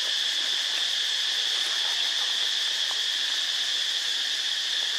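Steady high-pitched chorus of insects, an unbroken shrill drone without pauses.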